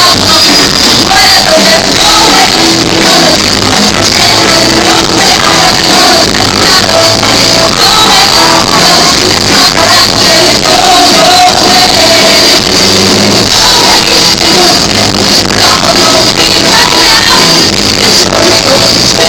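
Live band and singers performing a pop-rock song, with continuous singing over the band. The sound is loud and of poor quality.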